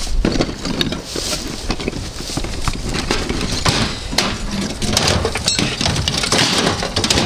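Scrap metal clinking and knocking as it is dug out and handled, with irregular knocks and rustling throughout.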